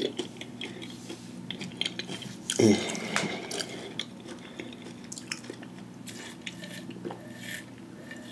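Sipping through the straw of an insulated water bottle, with swallows and small mouth clicks, and one louder gulp or throat sound about two and a half seconds in.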